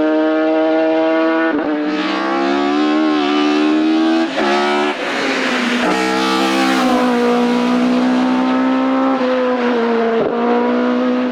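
Race car engine running hard at high revs on a hillclimb, with several quick gear changes that briefly break and step down the engine note.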